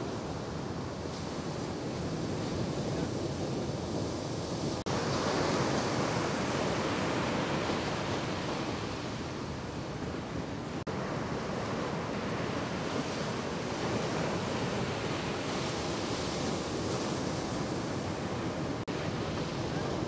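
Ocean surf breaking on a sandy beach, a steady wash of waves with wind on the microphone; the sound drops out for an instant three times, about 5, 11 and 19 seconds in.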